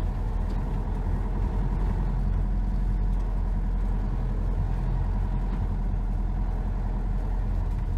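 Steady engine and road noise of a motorhome driving along a dirt road, heard from inside the cab.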